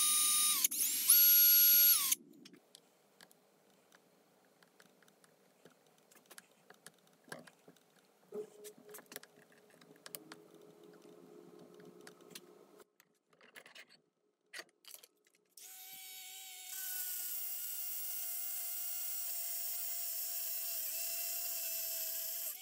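Power drill boring into the black plastic switch lever of a trimmer: two short high-pitched whining runs in the first two seconds, then only faint clicks of the part being handled. About fifteen seconds in, the drill starts a longer steady run with an even whine that gets louder a second later.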